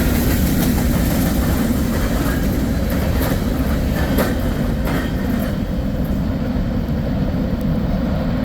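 Empty freight cars of a grain train rolling past with a steady rumble, the wheels clicking a few times over rail joints midway.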